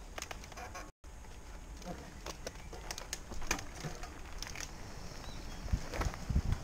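Mountain bikes rolling onto a dirt trail: scattered clicks and crunches of tyres on gravel and roots, turning into a louder rumble with knocks as the descent picks up speed near the end.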